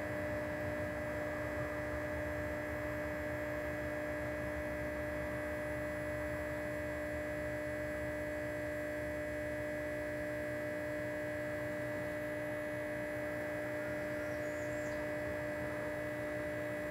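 Steady electrical hum made of several fixed tones over a low hiss, with no distinct events.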